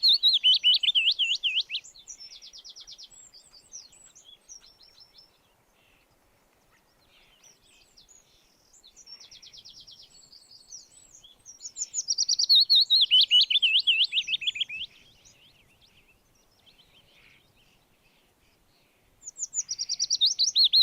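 Songbirds singing. One bird repeats a loud song of quick warbled notes that sweep down in pitch, lasting about two to three seconds each time: at the start, again around the middle and near the end. Between the songs there are quieter short trills and chirps.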